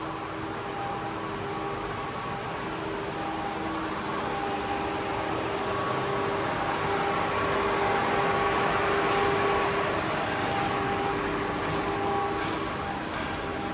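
Boehringer DUE 800 CNC lathe running: a steady machine hum with several steady tones over a noisy whir, growing louder toward the middle and easing off a little near the end.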